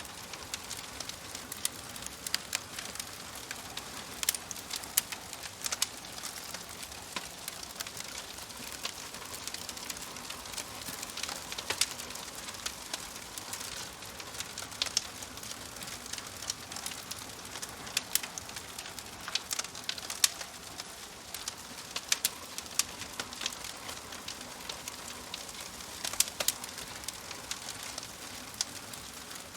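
Wood fire crackling in a fireplace: a steady hiss with frequent sharp, irregular pops and snaps.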